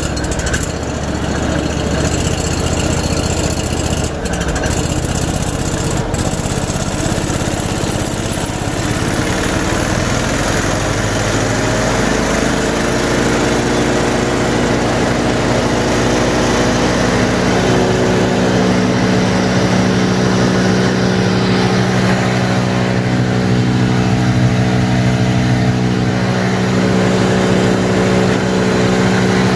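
Wood chipper's Honda two-cylinder four-stroke gas engine running at raised throttle while the chipper disc spins up to speed. The running is rough at first, then a steady drone settles in about halfway through and grows stronger.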